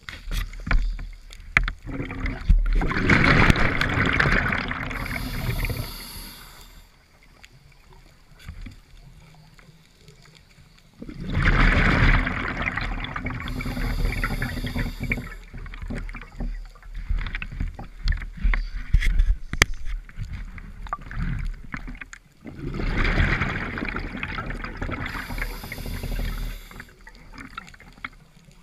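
Scuba diver breathing through a regulator underwater: three long breaths about ten seconds apart, each a rush of bubbling and hissing, with faint crackling water noise in between.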